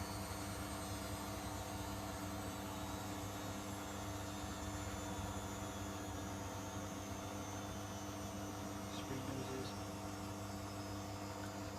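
Miele W Classic WDA110 washing machine's motor and drum giving a steady hum as the final spin winds down.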